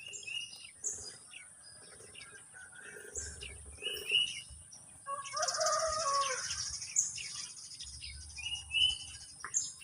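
Birds chirping, with short chirps repeating every few seconds and a longer, louder call about five seconds in, over a steady high-pitched hiss of insects.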